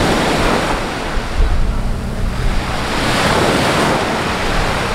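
Small waves breaking and washing up a sandy beach, the hiss of the surf swelling twice about three seconds apart, with wind buffeting the microphone.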